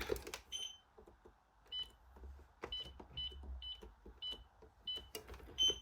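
Alarm control panel keypad beeping while the system is being armed: about eight short, high beeps at uneven intervals, with faint clicks between them.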